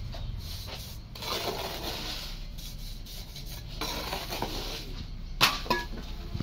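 Hand trowel scraping and spreading wet cement mortar along a pipe mould in a couple of drawn-out strokes. Near the end come two sharp metallic clinks, the first the loudest sound, ringing briefly.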